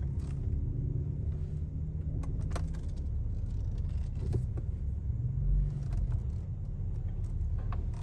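Infiniti M37's 3.7-litre V6 running at idle, a steady low rumble heard from inside the cabin, with a few light clicks and jingles over it.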